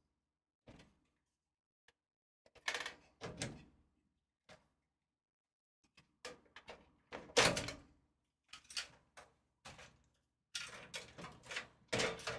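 Irregular clicks, knocks and clatter of hands handling parts inside a desktop PC case while the graphics card is taken out. They come in clusters, the loudest knock about seven and a half seconds in.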